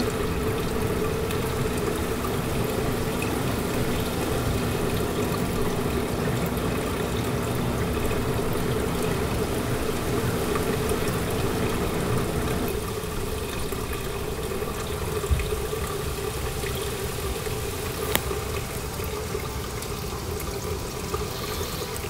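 Maytag top-loading washer running in its spin cycle, heard from underneath: a steady motor hum with water rushing through the belt-driven drain pump as it pumps out. The hum drops a little about halfway through. The spin basket is not turning, which the repairer puts down to a worn-out basket bearing.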